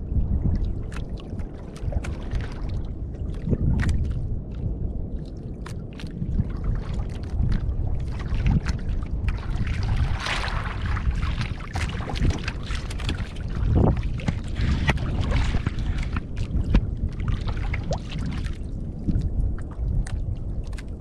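Wind buffeting the microphone and water lapping against the hull of a small wooden outrigger boat on open sea, with scattered small knocks and taps. A louder hiss swells up about halfway through.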